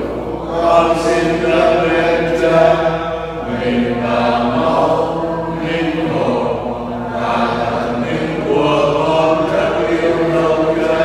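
Slow sacred chant sung by voices, long held notes in phrases a few seconds apart.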